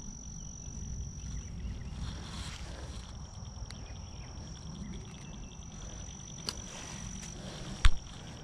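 An insect's steady, high-pitched drone over a low rumble, with a few faint clicks; the drone stops shortly before a sharp knock near the end.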